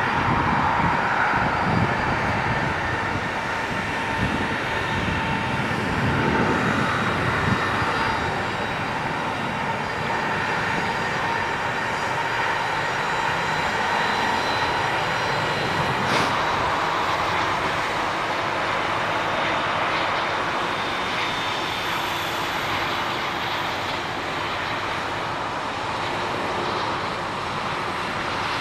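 Jet airliner engines running close by: a loud, steady rush with a thin whine over it, a little louder in the first few seconds.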